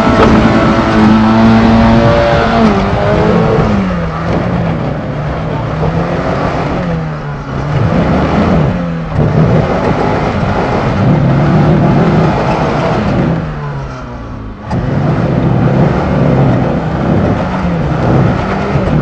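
Small Suzuki SJ 4x4's engine revving up and down repeatedly under load as it climbs over rocks. About fourteen and a half seconds in, the engine sound dips briefly with a sharp knock, then the revs pick up again.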